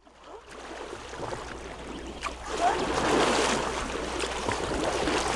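Water rushing and splashing around a canoe being paddled on a fast-flowing river, getting louder about two and a half seconds in.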